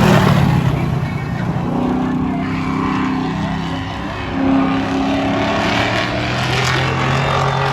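Car engine running loudly, its pitch holding for a second or so at a time and shifting up and down.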